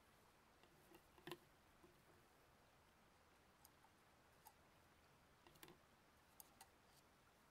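Near silence: room tone with a few faint, scattered clicks and taps, the sharpest about a second in and a small cluster near the end.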